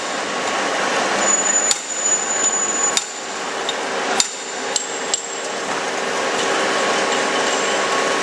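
Hammer strikes on steel, five sharp ringing blows about a second apart in the first half, over the steady noise and hum of workshop machinery.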